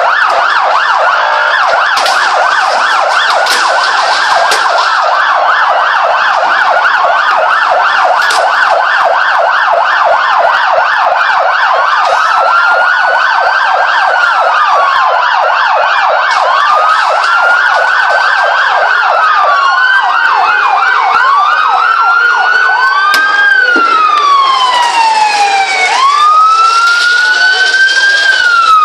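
Several police sirens sounding at once: a fast yelp for most of the time, with slow rising-and-falling wails joining in about halfway and taking over near the end.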